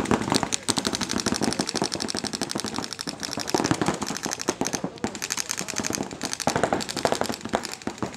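Paintball markers firing rapid streams of shots, several guns overlapping, with short lulls between streams.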